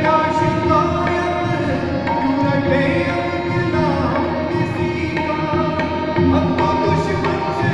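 Male singer performing a Hindi devotional song to harmonium and tabla: held harmonium tones under the voice, with the tabla keeping the rhythm.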